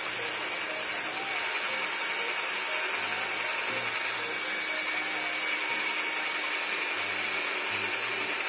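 INGCO 12V cordless drill running steadily, its twist bit boring into a thick rusty steel pipe under load without stalling.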